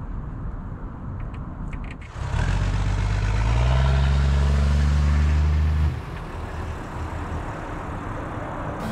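A motor vehicle's engine running: a low rumble, then about two seconds in a louder engine note comes up, rises slightly and holds steady for about four seconds before cutting off sharply, leaving a fainter rumble.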